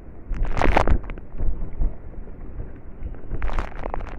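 Water splashing and streaming off a wet cast net as it is lifted close to the microphone, in two louder bursts about half a second in and near the end, over a low rumble of wind on the microphone.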